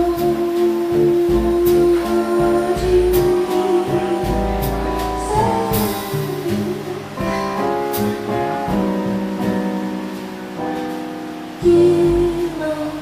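A woman singing a slow bossa nova ballad with piano, acoustic double bass and drums, holding a long note at the start and again near the end.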